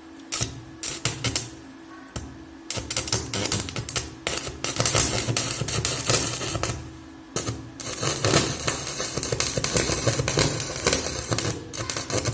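Stick (MMA) welding arc from a small ZX7-250 inverter welder, crackling and sputtering in stretches that stop and restart several times as the arc is struck and broken.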